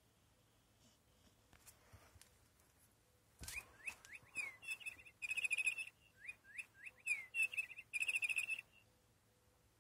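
The cat's new toy mouse chirping like a bird: a thump about three and a half seconds in as the cat pounces on it, then a run of short rising chirps and quick trills lasting about five seconds.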